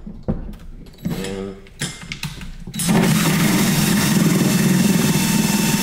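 Cordless Craftsman drill driving a hole saw into a plastic intake duct housing. It starts in short bursts, then about three seconds in it runs steadily at speed as the saw cuts through the plastic.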